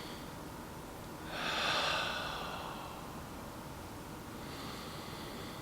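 A man breathing audibly through his nose: one long breath starting about a second in, then a fainter one near the end, over a steady faint hiss.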